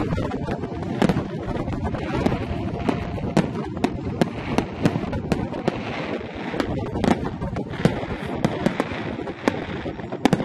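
Aerial firework shells bursting in quick, irregular succession: many sharp bangs over a continuous low rumble. Crackling-star bursts add a dense crackle for a few seconds in the middle.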